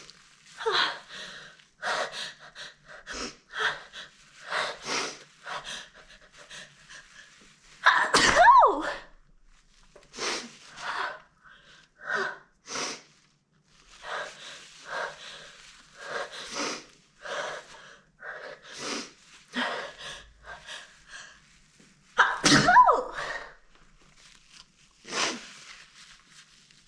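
A young woman's breathy, gasping sneeze build-ups, a short 'ahh' every second or so, breaking into two loud, explosive sneezes: one about eight seconds in and another some fourteen seconds later.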